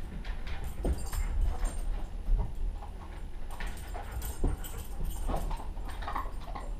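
A wolf dog moving about, making scattered short taps and scuffs with a few brief whimpers.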